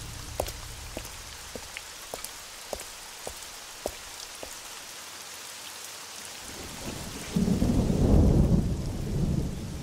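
Steady rain with scattered louder drop hits. About seven seconds in, a long, low roll of thunder builds and fades.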